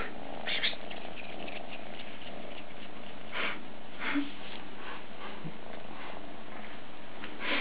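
Young Maine Coon kitten purring steadily close up, with a few short rustles as it paws and chews at a feather.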